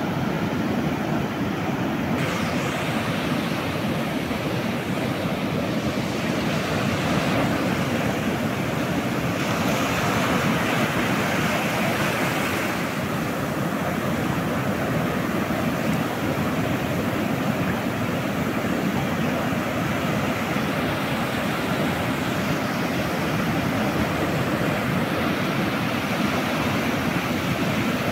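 Surf breaking and washing over the shallows in a steady rush, with wind rumbling on the microphone. A wave washes in louder about ten seconds in.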